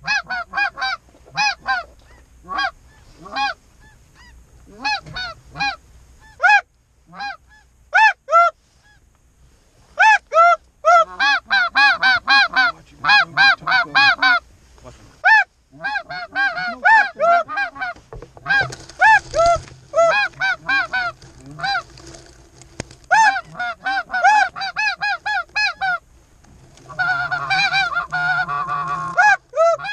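Geese honking: a long run of short, arched honks, some fast and overlapping. The calling thickens into a dense chorus of honks near the end.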